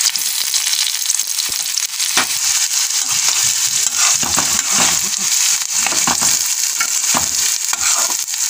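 Sliced onions sizzling in hot oil in a steel karahi, stirred with a metal spatula that scrapes and clinks against the pan every so often over the steady frying hiss.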